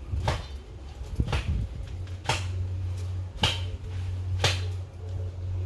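Five sharp clicks, evenly spaced about a second apart, over a low steady hum.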